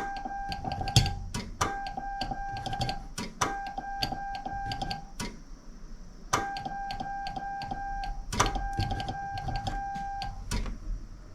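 Morse code sent by hand on a straight key: a steady single-pitched beep keyed on and off in dots and dashes, in five runs of about a second and a half with short pauses between. Sharp clicks of the key's contacts come with the keying, loudest at the start of each run.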